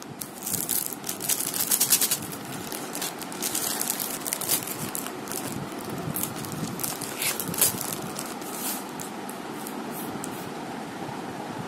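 Clear plastic wrapping on craft sheets crinkling and rustling as it is handled, in quick irregular bursts, dying away after about nine seconds to a faint steady hiss.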